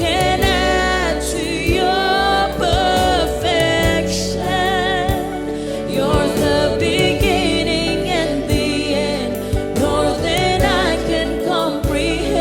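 Live contemporary worship music: a wavering, held vocal line sung over a band with steady keyboard or guitar chords and drum hits.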